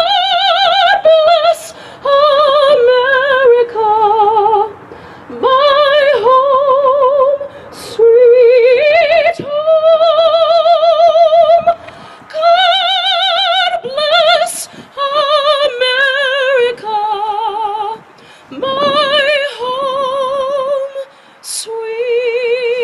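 Soprano singing solo into a microphone: long held notes with a wide, even vibrato, in phrases separated by short pauses.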